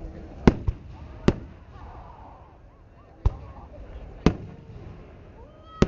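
Fireworks exploding in the air: six sharp bangs at irregular intervals. Between them a woman's voice whoops faintly.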